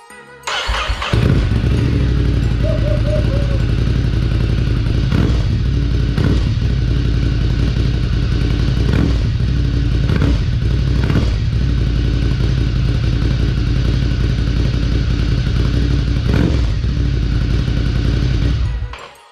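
Ducati Scrambler's L-twin engine, fitted with an SC Project Conic slip-on exhaust, starts up about a second in. It idles steadily and is shut off near the end.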